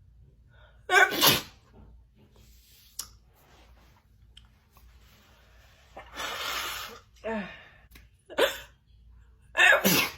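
A woman sneezing repeatedly in a fit of wet, spraying sneezes: a loud sneeze about a second in, then two more in quick succession near the end, with a long breathy rush and a short falling vocal sound between them.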